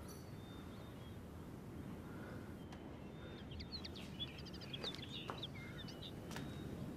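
Faint outdoor ambience with small birds chirping: short, high chirps gathered in the middle. A couple of faint ticks come near the end.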